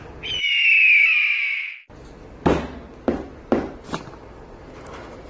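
A loud bird-of-prey scream: one long screech falling in pitch and lasting under two seconds. It is followed by four sharp knocks about half a second apart.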